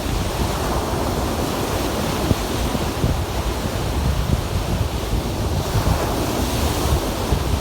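Lake waves breaking on the shore in a steady rush of surf, with wind buffeting the microphone and adding a low rumble.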